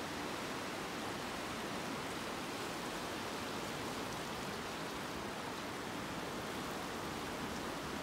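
The Katun River's fast current rushing over rocks: a steady, even rush of water.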